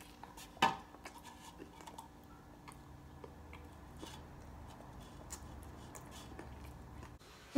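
A person eating in a quiet room: faint chewing with scattered small clicks, one louder click about half a second in.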